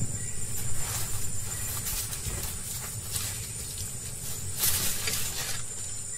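Tigers feeding on a deer carcass: a low rumbling with brief rustling, tearing noises every second or so.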